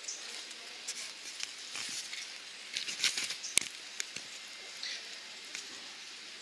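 Rustling and crackling in dry leaf litter, a scatter of short clicks that bunch up about three to four seconds in, with one sharper click among them.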